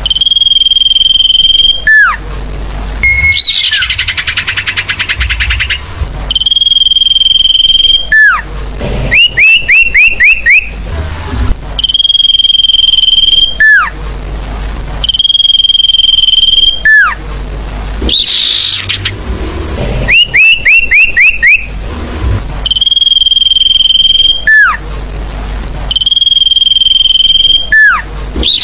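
Sirfu bird lure call, looped: a long, steady high whistle that ends in a quick downward slur, repeated about every three to four seconds, broken twice by a quick run of about five rising chirps and by two rasping, buzzy notes, over a steady low hiss.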